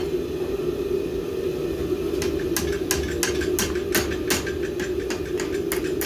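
Hand hammer striking the red-hot jaws of box jaw tongs on an anvil, folding the jaw ears over a piece of flat stock. The blows start about two seconds in and come about three a second, over a steady low drone.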